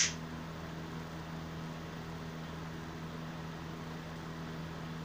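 Steady low hum over a faint even hiss: room tone, with a short hiss at the very start.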